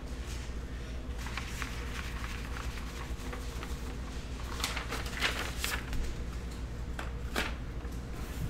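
Handling noise from a sheet of printed paper being held and moved: soft rustling with a few light clicks and knocks about five seconds in and again near the end, over a steady low electrical hum.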